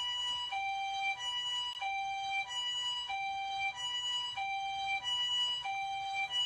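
Ambulance siren recording played from an iPhone speaker. It alternates evenly between a higher and a lower tone, a little over half a second each.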